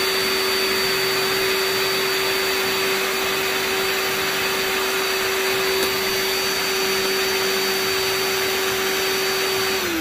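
Milwaukee M12 DE dust extractor running on auto as an M12 drill bores a hole: a steady motor and fan sound with a high whine, sucking up the drilling dust, then both spinning down just before the end.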